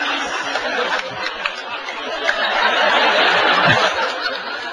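A large theatre audience laughing at a stand-up comedian's punchline. The laughter swells again about halfway through and eases off near the end.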